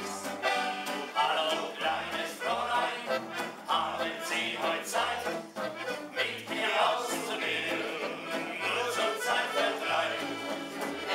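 Accordion band playing folk dance music, several accordions together over a bass line of short low notes.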